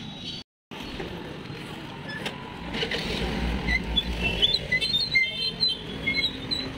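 Outdoor street-market ambience: a steady hum of traffic and crowd noise that cuts out briefly about half a second in, with a low rumble around the middle and many short, high chirps in the second half.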